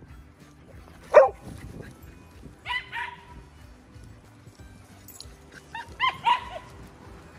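Dogs barking as they run and play. There is one loud bark falling in pitch about a second in, two more just before three seconds, and a quick run of several barks around six seconds.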